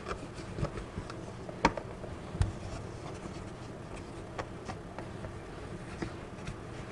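Hands pressing and smoothing rolled pie dough into a metal pie plate: quiet, soft rubbing with a few faint taps and clicks, the sharpest ones between one and two and a half seconds in.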